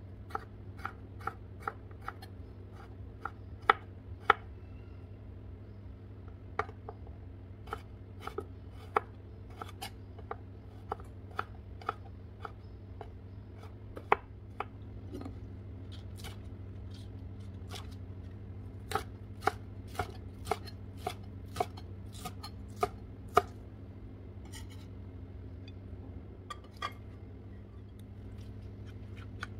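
Chef's knife slicing carrots on a wooden cutting board: a string of sharp, irregular knocks as the blade strikes the board, about one or two a second, stopping near the end. A steady low hum runs underneath.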